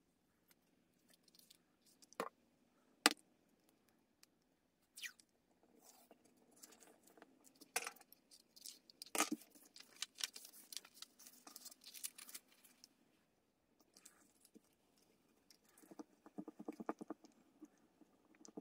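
Paper pages of a handmade journal being turned and smoothed: faint rustling and crinkling with a few sharp taps, and a quick run of rubbing strokes over the paper near the end.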